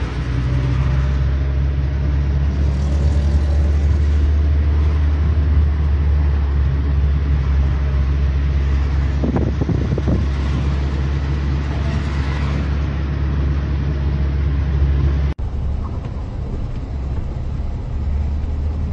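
Car engine and road noise heard from inside the cabin while driving: a steady low drone. It cuts off abruptly about fifteen seconds in and carries on quieter.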